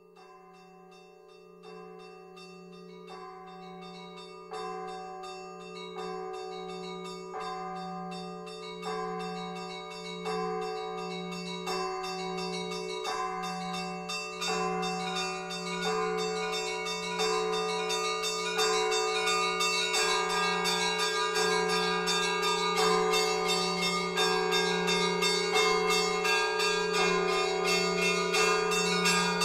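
Church bells ringing: a deep bell hums steadily underneath while smaller bells are struck at a regular pace. The peal grows steadily louder.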